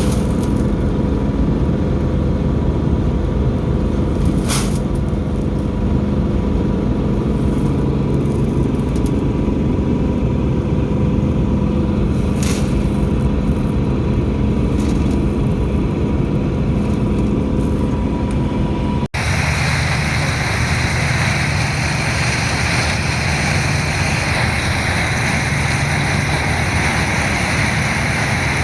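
Gleaner K combine running steadily while harvesting corn, a loud, even drone with a couple of sharp clicks. About two-thirds of the way through the sound changes abruptly to a hissier steady machine drone.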